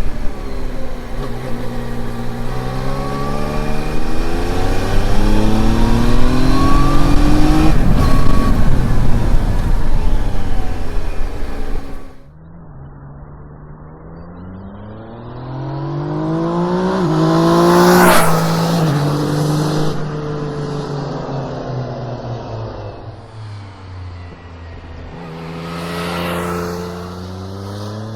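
Yamaha Tracer 900 GT's 847 cc three-cylinder engine through its stock muffler. For about the first 12 seconds it is heard close up, accelerating with the pitch rising through the revs over a steady low rumble. After an abrupt cut the bike is heard from the roadside, approaching and passing loudly about 18 seconds in, then fading, with a second, quieter pass near the end.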